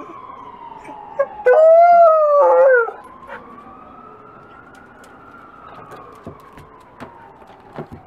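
A wolfdog gives one howl about a second and a half in, rising and then wavering down, over a faint ambulance siren wailing slowly down and up again. After the howl only the siren goes on, with a few light clicks.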